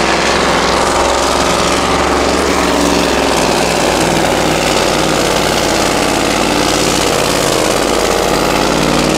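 Scania pulling truck's diesel engine running loud and steady under heavy load as it drags a weight sled, front wheels lifted off the track.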